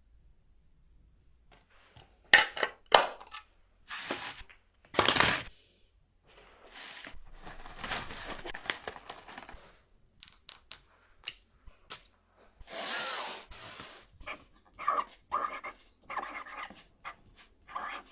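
Packaging being handled while an order is packed: a string of rustling and tearing bursts mixed with short clicks and taps, with one longer, louder tearing rasp about two-thirds of the way through.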